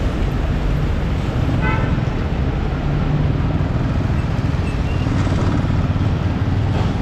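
Yamaha R15's single-cylinder engine running at low speed in slow traffic, over steady road and traffic noise. A short vehicle horn toot sounds about two seconds in.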